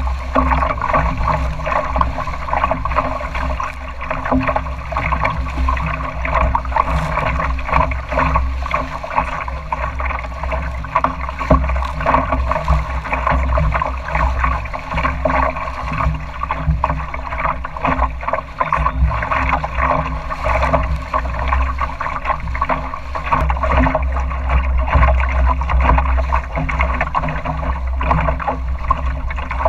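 Water rushing and splashing steadily along the hull of a small sailing dory under way through choppy water, full of small splashes, with a low wind rumble on the microphone.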